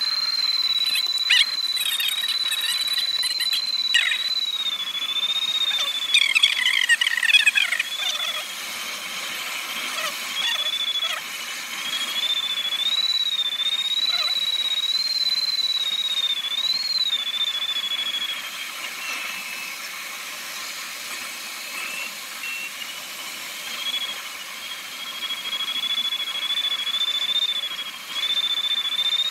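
Glider cockpit in flight: steady airflow hiss with a thin, high tone that wanders slightly in pitch throughout. About six to eight seconds in, a brief cluster of falling chirps sounds over it.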